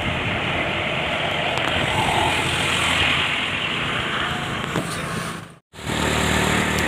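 Steady road noise of a bus on the move, an even rush of engine and tyres. About five and a half seconds in it cuts out abruptly for a moment, then comes back.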